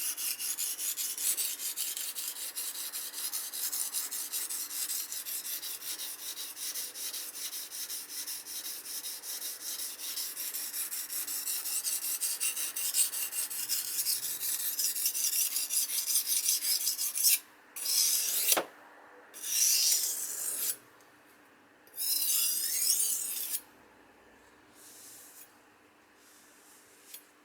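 Steel kitchen knife blade stroked rapidly back and forth on the coarse side of a wet whetstone, a steady gritty scraping. After about seventeen seconds it stops, and a few slower separate strokes follow.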